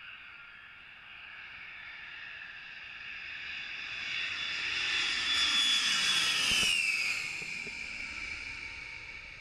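Large jet aircraft on approach to land, flying low overhead. The whine and rumble of its jet engines grow louder, peak about six seconds in as it passes over, with the whine dropping in pitch, then fade away.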